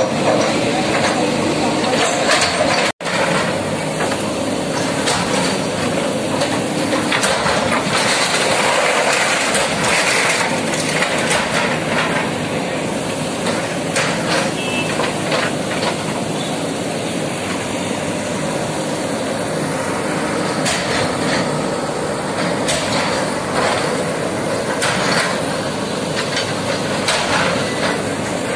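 JCB backhoe loaders' diesel engines running under load while their buckets break up concrete, with repeated knocks and crashes of falling rubble.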